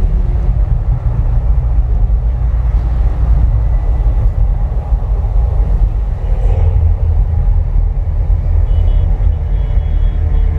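Loud, steady, deep rumble from the Mirage volcano show's eruption effects, heavy in the bass.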